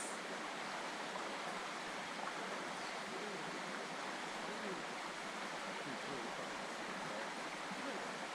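A river flowing: a steady rush of water with light gurgling, unchanging throughout.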